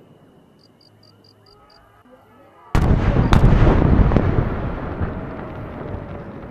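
Aerial firework shells bursting: a sudden loud boom nearly three seconds in, a second sharp crack about half a second later, then a dense crackle and rumble that slowly fades.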